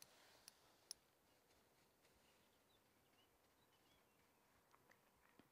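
Near silence, with two faint clicks in the first second and a few faint high chirps.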